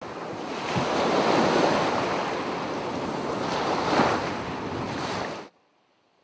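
Rushing whoosh of an animated logo intro. It swells about a second in and again about four seconds in, then cuts off suddenly about five and a half seconds in.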